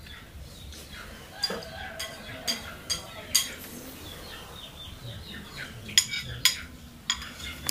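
A series of about ten sharp clinks and knocks at uneven intervals, some in quick pairs, with faint high chirping behind them in the middle.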